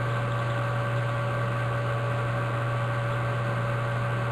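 Steady low hum with an even hiss and a few faint steady tones above it; nothing else happens.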